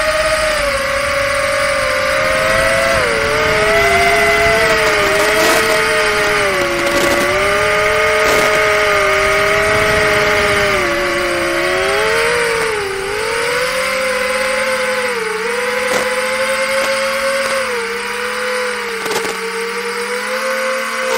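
A 4-inch FPV quadcopter's 1603 2800KV brushless motors and propellers whining in flight, several close pitches rising and falling together with the throttle, over a steady hiss.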